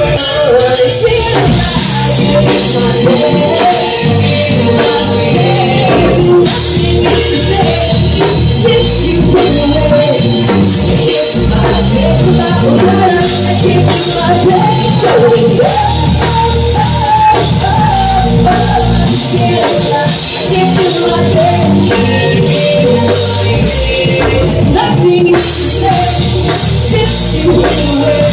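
Live band playing a song, loud: a singer over a drum kit and other instruments.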